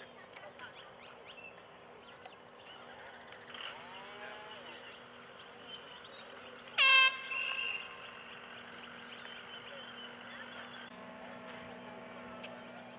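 A single short air horn blast about seven seconds in, a bright blaring tone with many overtones that stops after less than half a second and leaves a weaker tail.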